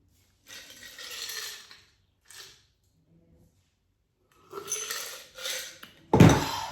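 Dishes and cutlery being handled on a table: several bursts of clatter and rustling, then a loud knock near the end as something is set down.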